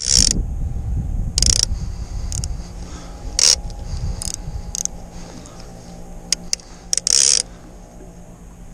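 Baitcasting reel being cranked, its gears whirring steadily, with a few short sharp rushes of hiss over it.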